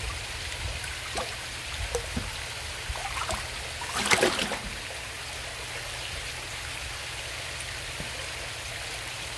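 Steady trickle of running pond water, with a few small knocks and splashes and a brief louder noise about four seconds in.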